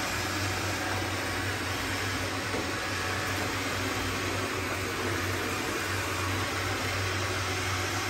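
Two robot vacuums, a Roborock S4 and an iRobot Roomba 655, running steadily with a constant hum as they sweep confetti off a tile floor.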